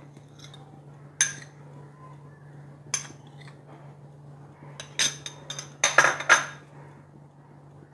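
A metal spoon clinking against glass bowls as flour is spooned into a bowl of battered cauliflower. There are a few separate clinks, then a quick run of them in the second half.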